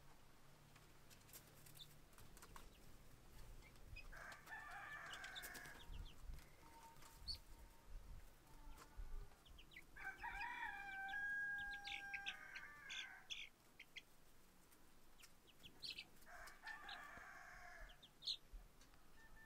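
A rooster crowing faintly, three times, each crow lasting a couple of seconds. Short high chirps from poultry come in between.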